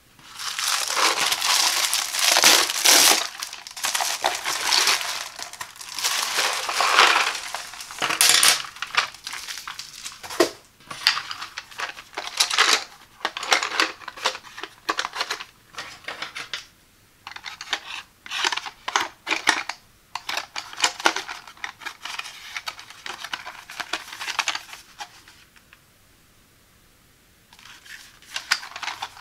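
Hands opening a plastic bubble mailer, its film crinkling and tearing densely for the first several seconds. Then come shorter rustles, taps and clicks as a cardboard box of Crayola colored pencils is handled and turned over, with a few seconds of quiet near the end.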